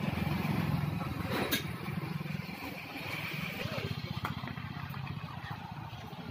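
An engine idling steadily with a fast, even low pulse, and a couple of faint knocks.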